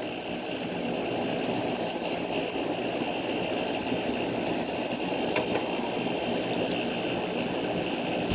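2000 Gibson 5000 BTU air conditioner running steadily, its compressor and fan giving an even hum. The unit is not cooling, which the owner puts down to low refrigerant.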